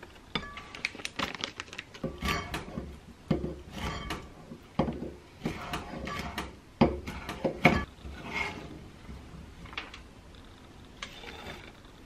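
Chef's knife chopping walnuts on a wooden cutting board: rapid, irregular knocks of the blade on the board, thinning to a few scattered taps after about eight seconds.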